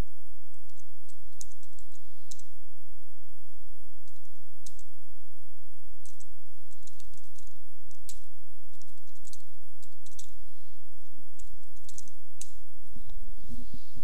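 Typing on a computer keyboard: irregular keystroke clicks as a shell command is typed, ending with the Enter key. Underneath are a steady low hum and a faint steady high whine, and a low rumbling noise comes in near the end.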